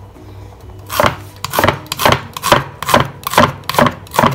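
Kitchen knife slicing a shallot on a wooden cutting board: after about a second of quiet, a quick, uneven run of about ten chops as the blade cuts through and hits the board.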